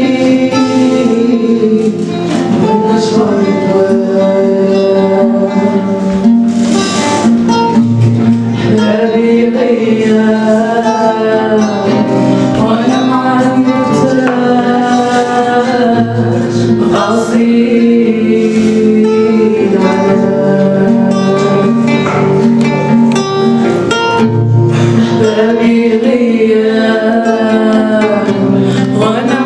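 A woman singing a melodic song to an acoustic guitar accompaniment.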